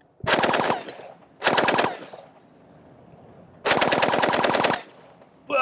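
Original Vietnam-pattern M60 machine gun in 7.62 NATO firing three short bursts of automatic fire, the third the longest at about a second.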